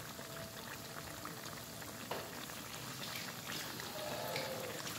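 Battered banana fritters deep-frying in hot oil in a wok: a steady crackling sizzle of many small pops.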